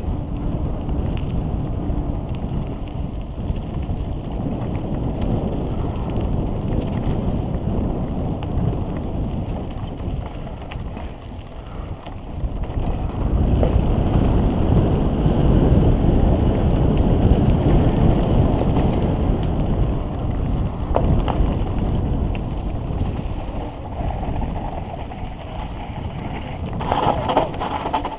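Wind buffeting the microphone and mountain-bike tyres rumbling over a dirt trail at speed, with scattered rattles and clicks from the bike. It grows louder about halfway through.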